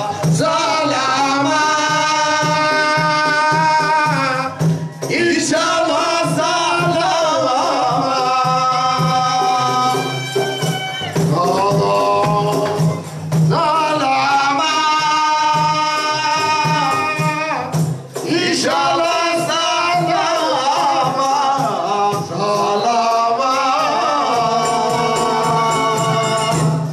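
Amplified song: a lead voice sings long, held phrases over a steady beat of hand drums and tambourine jingles, pausing briefly between phrases.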